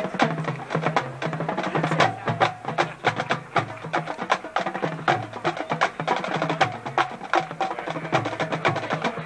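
Percussion-driven music: rapid, sharp strikes over a low bass line that steps between notes.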